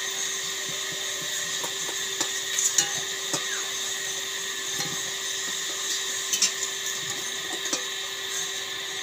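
Potato wedges sizzling steadily in hot oil in an iron kadai, with a few clinks of a metal spatula against the pan as they are turned and lifted out.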